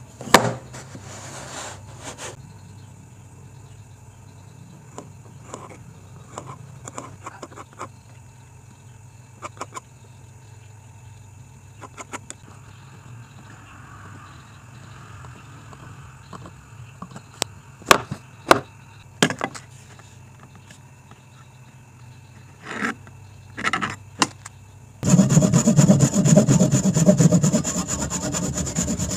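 Wooden pieces handled on a wooden table, with a few sharp wood-on-wood knocks and the faint scratch of a pen marking lines on the wood. About 25 seconds in, a saw starts cutting into the wooden board, much louder than everything before it.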